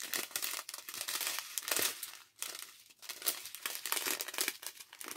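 Small zip-lock plastic bags of diamond painting drills crinkling irregularly as they are handled and turned over.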